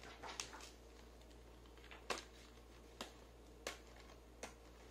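Faint handling of a stiff cardboard craft book: a short rustle at the start, then a few separate light clicks and taps.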